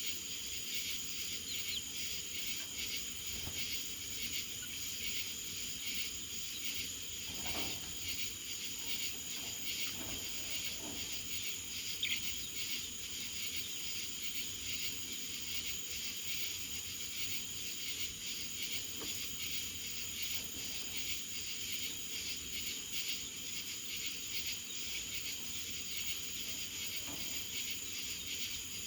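A steady, high-pitched chorus of insects, with a few faint knocks.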